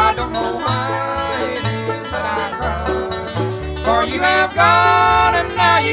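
Bluegrass band playing an instrumental passage: banjo, guitar, mandolin and upright bass, with a steady bass line underneath.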